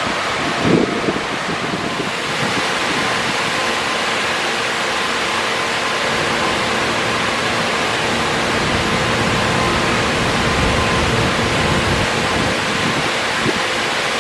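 Artificial waterfall pouring down steep rock faces: a steady, full rush of falling water, with a short low bump about a second in.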